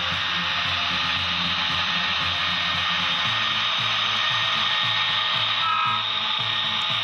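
Model diesel locomotives running past: a steady, loud hiss over a low, uneven engine-like rumble, with a brief high tone about six seconds in.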